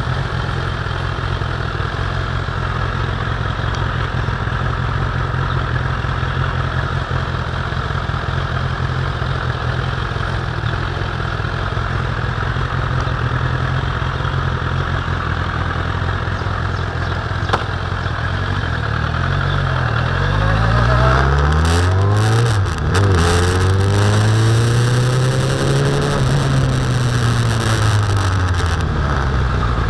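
Suzuki Bandit motorcycle's inline-four engine running at steady, low revs under way, then revving up about two-thirds of the way in. The pitch drops briefly at a gear change, climbs again and falls away near the end as the bike slows.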